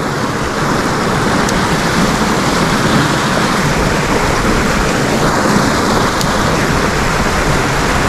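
Steady rushing of creek water.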